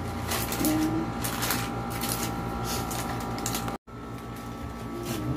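Aluminium foil wrappers crinkling and rustling in irregular bursts as foil-wrapped burgers are handled, over a steady hum. The sound drops out completely for an instant a little before the end.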